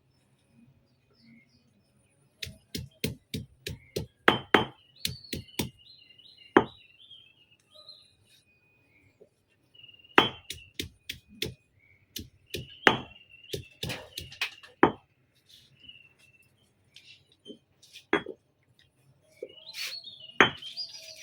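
Irregular sharp knocks and clinks of kitchen utensils as the herbal ingredients are worked, in clusters of quick strokes, with birds chirping throughout.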